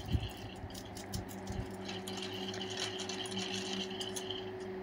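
Wire whisk stirring a thin mango juice and starch mixture in a metal saucepan, its wires making quick light clicks against the pot. A steady low hum runs underneath.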